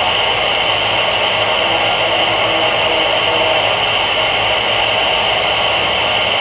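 CB radio receiver on AM with no one transmitting, putting out a steady rush of static and hiss from its speaker, with a few faint short tones about halfway through.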